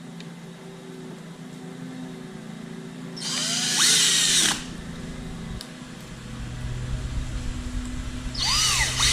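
Power drill/driver running twice in short bursts of about a second each, its motor pitch rising as it spins up and falling as it stops, as screws are driven during oven door hinge reassembly.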